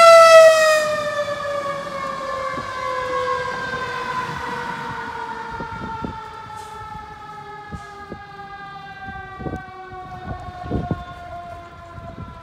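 Fire engine's siren sounding one long, slow falling wail that drops steadily in pitch and fades as the truck moves away, with a few faint knocks near the end.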